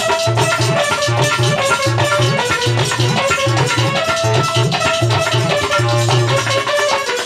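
Instrumental music with plucked strings and a shaker over a steady, regular beat.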